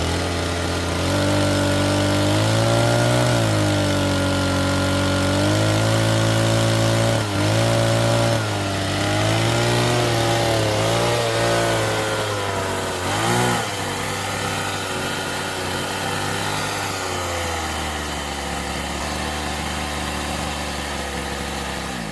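Homemade RC excavator's motor running under load while it digs, its pitch repeatedly dipping and recovering as the arm and bucket work. Near the end it settles to a steady, lower hum, then cuts off suddenly.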